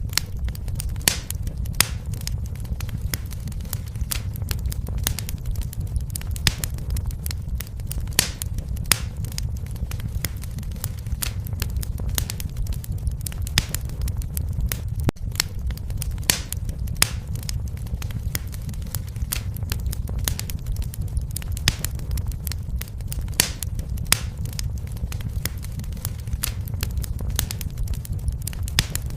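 Wood fire in a fireplace crackling: frequent sharp pops and snaps at irregular spacing over a steady low rumble of the flames.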